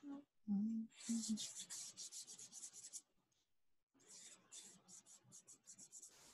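Vine charcoal stick being scribbled across drawing paper to shade in darks: quick, scratchy back-and-forth strokes, several a second, in two runs of about two seconds with a short pause between.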